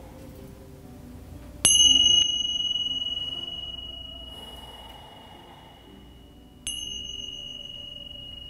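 A small high-pitched meditation bell or chime struck twice, about five seconds apart, each strike ringing on and slowly fading, over faint background music. It marks the end of the relaxation pose.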